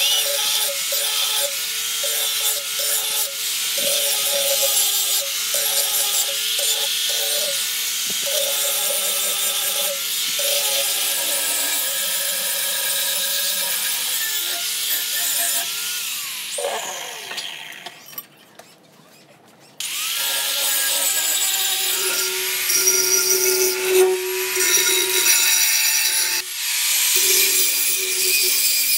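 Electric angle grinder running under load, its disc cutting into the steel of an old cleaver blade: a steady motor whine under the harsh hiss of disc on metal. About two-thirds of the way in it spins down, falls briefly quiet, then starts up sharply and cuts on with a more uneven whine.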